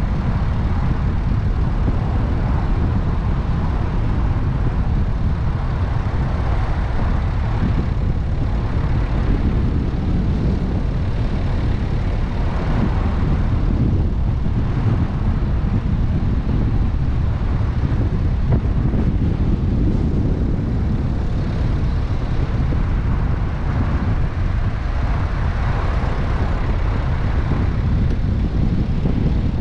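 A car driving through city traffic, picked up by a GoPro mounted on the car: a steady low rumble of road, tyre and engine noise that swells and eases a little every few seconds.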